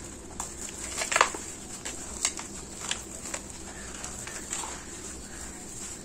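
Dry sand-cement clumps crushed and crumbled between gloved hands, the grit falling onto wet cement paste: scattered crunches and crackles, the loudest about a second in.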